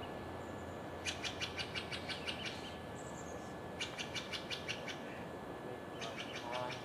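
A songbird singing three times, each song a quick series of sharp repeated notes, about five or six a second, over a faint steady outdoor background.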